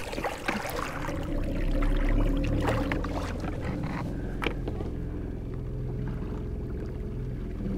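A boat motor running steadily at low speed, with water washing along the hull and a couple of light knocks.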